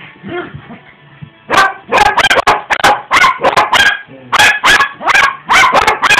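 Small dogs barking during play: a fast run of loud, sharp barks that starts about a second and a half in, after some faint whines and growls.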